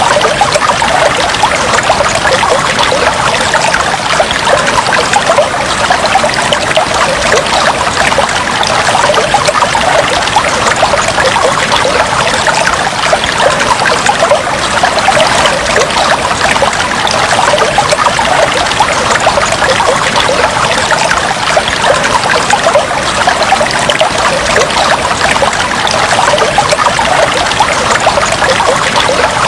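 Fish tank water trickling and bubbling steadily, a dense, even patter of small splashes and bubbles.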